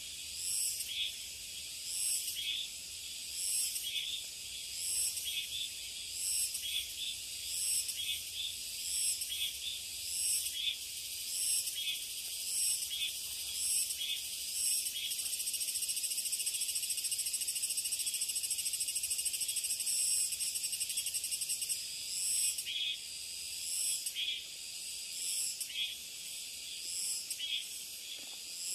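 Cicada song: a high, pulsed call repeating about every 0.7 s, which runs into a continuous buzz for several seconds in the middle and then breaks back into pulses.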